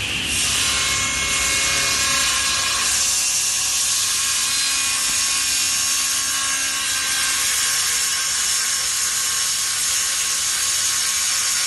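Woodworking power tool cutting wood: a steady, even hiss of the cut that keeps going, with a faint whine from the machine underneath.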